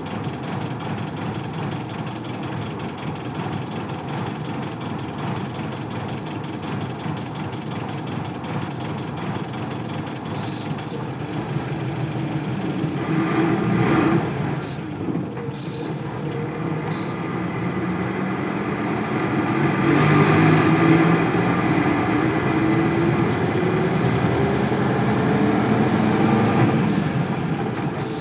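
Isuzu 8PE1 V10 diesel engine of an Isuzu Cubic bus idling unsteadily, then revving up with a rising pitch as the bus pulls away and accelerates in the second half.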